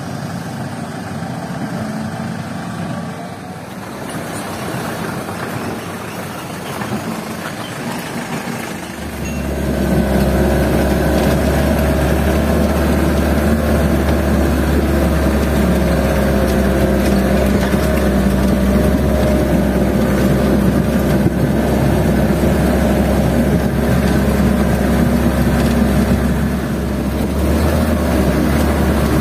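Heavy diesel machinery running at a riverbed sand-loading site. About nine seconds in, the sound jumps to a louder, steady low diesel drone heard from inside a cab while the machine travels along the river.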